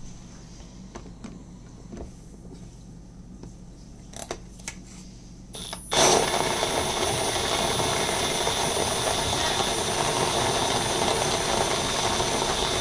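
A Milwaukee drill, chucked onto the drive shaft of a stainless-steel manual coffee grinder, starts suddenly about halfway in and runs steadily, turning the burrs to grind coffee. Before it starts there are only a few faint clicks of handling.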